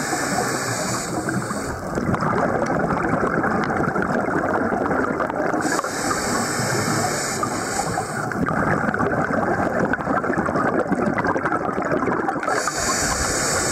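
A scuba diver's breathing through the regulator, heard underwater: a steady rushing and bubbling, with a higher hiss that comes three times, at the start, about six seconds in and near the end.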